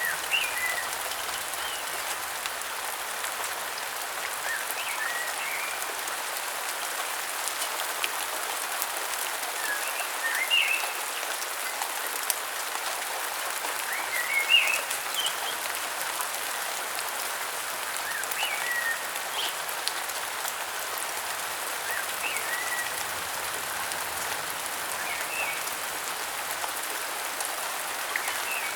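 Steady rain falling in a rainforest, with birds giving short chirps every few seconds over the hiss of the rain.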